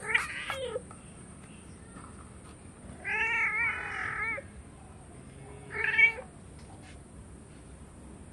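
Calico kitten meowing three times: a short meow at the start, a long drawn-out meow about three seconds in, and a shorter one about six seconds in.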